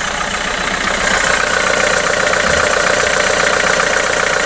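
Renault Kangoo engine idling steadily, heard close up in the engine bay, running with a freshly refitted alternator overrunning clutch and drive belt. It grows a little louder over the first second, then holds even.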